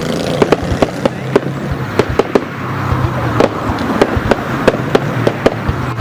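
Fireworks going off in a rapid, irregular string of sharp bangs and pops, several a second, over a steady low background hum.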